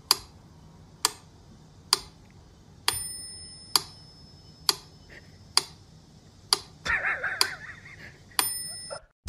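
Mechanical pendulum metronome ticking steadily, just under once a second, with its bell ringing twice on accented beats six ticks apart. A brief scratchy rustle comes about seven seconds in.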